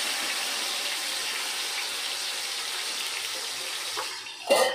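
Marinated chicken sizzling as it lands in hot oil in an aluminium pot, a steady hiss that slowly fades. A sharp metallic clank about four and a half seconds in.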